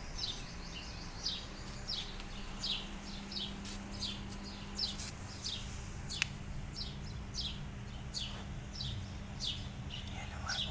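Small birds chirping over and over, short high chirps falling in pitch about twice a second, over a steady low hum.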